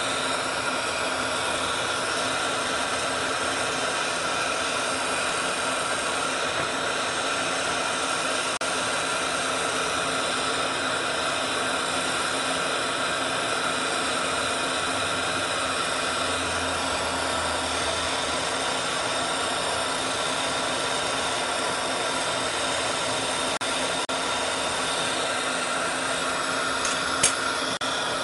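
Oxygen-and-gas lampworking torch flame burning with a steady hiss as a glass bead is worked in it. A brief click near the end.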